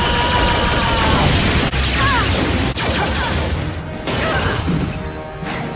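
Animated robot battle soundtrack: crashes, impacts and mechanical clanks over dramatic music, broken by short grunting cries from a female robot voice.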